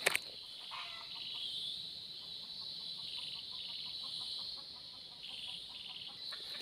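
Snared red junglefowl clucking softly and repeatedly, over a steady high-pitched drone of forest insects. A sharp click right at the start.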